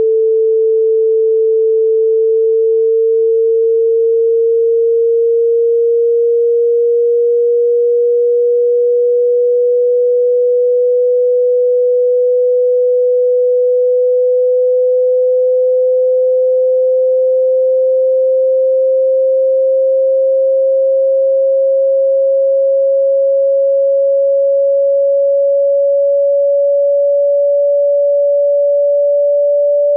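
A loud, steady pure sine tone that glides very slowly upward in pitch, from about 444 to about 571 hertz. It is a speaker water-ejection tone, meant to be played at full volume so the vibration drives water out of a phone's speaker.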